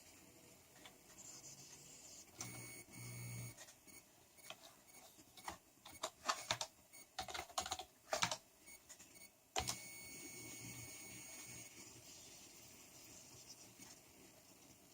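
Electrical noise from a PC leaking into its speakers on a high-gain analog input. A thin whine comes in a little over two seconds in and again near ten seconds, with a run of sharp crackling clicks in between. The owner suspects the CPU or RAM; the noise goes away when the sound is sent out optically.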